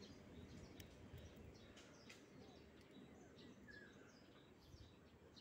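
Near silence: a faint outdoor background with faint bird chirps repeating throughout and a few faint clicks in the first half.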